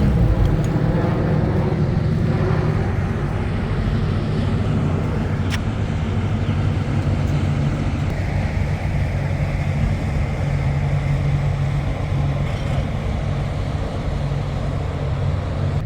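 Engine of an amphibious car running with a steady low drone, with one sharp click about five and a half seconds in.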